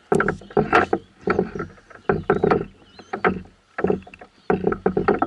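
Clusters of quick, hollow knocks and clunks against a canoe hull, as gear is handled in the boat.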